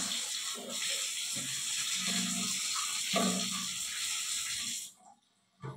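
Water running from the spout of a newly fitted hot-and-cold shower mixer valve, a steady hiss that cuts off suddenly about five seconds in as the lever is closed. A short knock follows just before the end.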